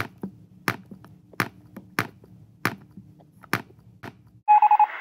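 A series of sharp knocks, the strongest about two-thirds of a second apart, over a low steady hum. About four and a half seconds in they stop and an electronic beeping begins.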